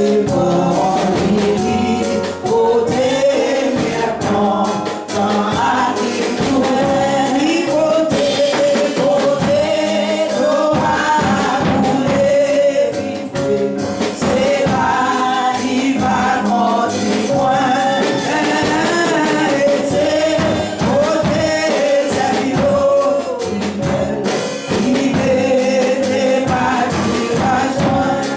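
A congregation singing a gospel hymn together over a band accompaniment with a steady beat.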